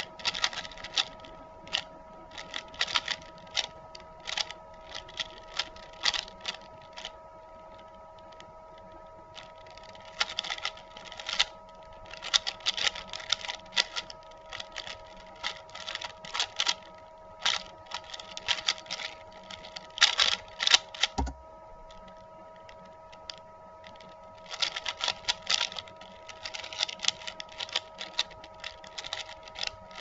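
Stickerless Valk 3 speedcube being turned rapidly by hand: fast runs of plastic clicking and clacking as the layers snap round, broken by short pauses. A single low thud comes about two-thirds of the way through.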